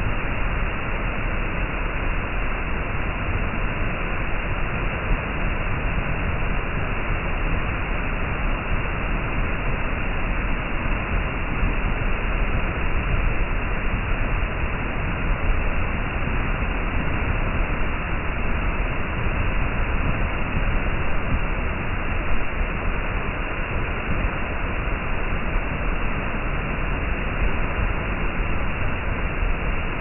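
Waterfall pouring, heard from right behind its falling curtain of water: a steady, unbroken rush with a deep rumble underneath.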